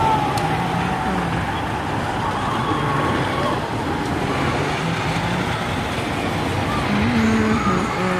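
Steady dense noise throughout, with faint voices underneath and one voice a little louder near the end.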